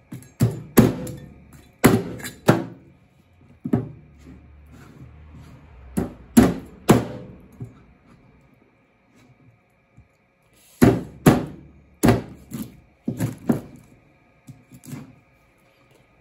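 Chinese cleaver chopping through a yellowtail head on a plastic cutting board: sharp thunks with a short ring, in clusters of two or three, with a pause of a few seconds around the middle.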